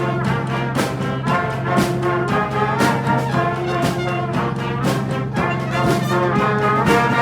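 Street brass band of horns and drums playing an up-tempo riff, with a horn soloing over it and a drum hit landing about once a second. A steady low hum runs underneath.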